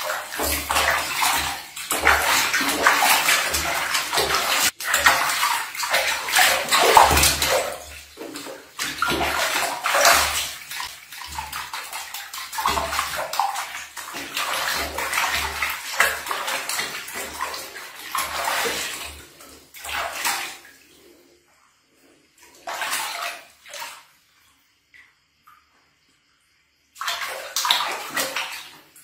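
Water splashing and sloshing in a plastic washbasin as a baby marmoset is washed by hand. The splashing goes on steadily for about twenty seconds, then comes in short bursts with quiet gaps between.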